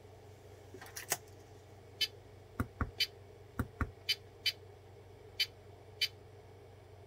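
About a dozen sharp clicks at an irregular pace from the igniter kit's small tactile push button being pressed over and over. No arc crackle answers them: the module is dead, drawing no current, because its transformer windings were not properly soldered through the enamel.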